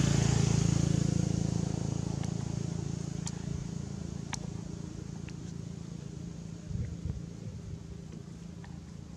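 A motor vehicle's engine humming, loudest at the start and fading steadily away, with a few faint sharp clicks.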